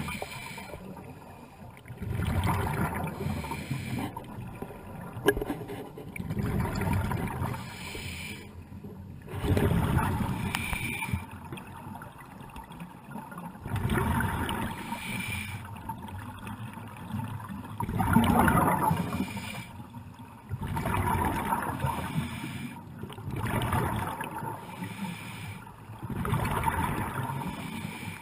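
A scuba diver breathing underwater through a regulator, each exhale a burst of rumbling bubbles, about one every three to four seconds.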